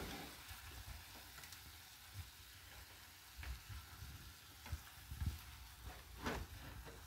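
Frozen ground beef patties sizzling faintly in a frying pan as they thaw and cook, with the scrape and occasional knock of a spatula breaking them apart in the pan; one knock about six seconds in is the loudest.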